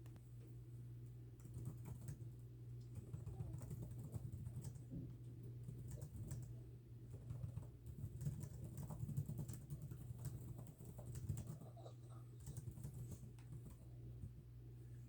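Typing on a computer keyboard: a quick, irregular run of keystroke clicks, over a steady low hum.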